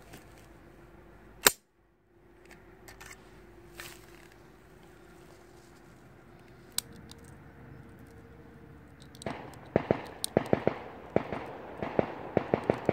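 Celebratory gunfire from handguns fired into the air: one close, loud shot about a second and a half in, a few faint distant shots, then from about nine seconds a rapid, dense volley of many shots, echoing.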